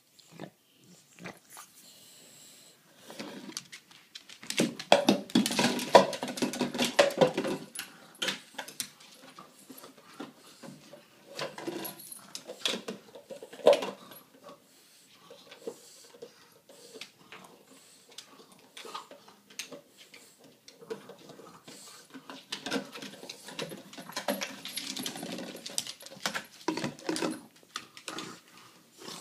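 French bulldog working at a peanut butter jar on a wooden floor: dog sounds come in two louder spells, about five seconds in and again near the end, over repeated knocks and scrapes of the jar against the floor.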